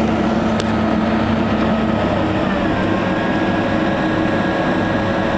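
Steady rumble of a Boeing 767-200's engines and rushing air, heard from inside the cabin as the jet slows on the runway after landing. The engine hum shifts in pitch about two seconds in.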